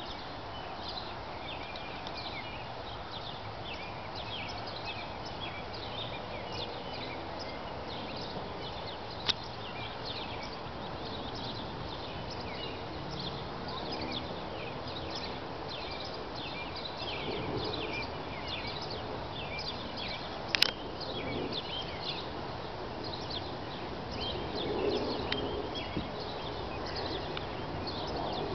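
Outdoor background noise with many short, high chirps throughout, and a couple of sharp clicks, the louder one about two-thirds of the way in.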